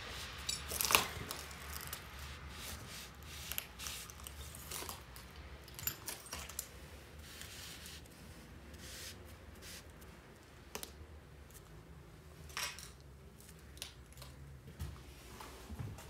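Homemade graffiti mop rubbing and dabbing across paper wallpaper: irregular scratchy strokes and small clicks, the loudest scrape about a second in, over a steady low hum.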